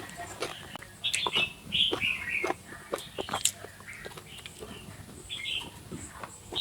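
Short crisp clicks of someone chewing and eating, with birds chirping a few times: short calls about a second in, around two seconds in and near the end.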